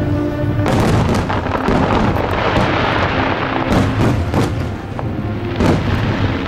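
Fireworks going off over music: a loud burst about a second in, a long dense crackle for a few seconds after it, then several more single bangs, with the show's music playing throughout.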